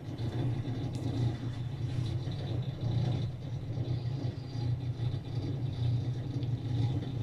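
Steady low-pitched background rumble with a faint hiss.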